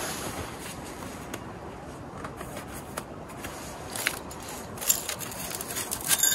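Handling noises from camping gear: soft rustling and a few light clicks as a metal cylinder is picked up and work gloves are pulled on beside a small titanium wood stove, over a steady faint hiss.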